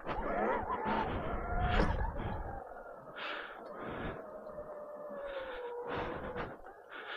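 Electric pit bike's motor whining, its pitch climbing briefly near the start and then sliding slowly down as the bike slows, with repeated rushes of noise over it.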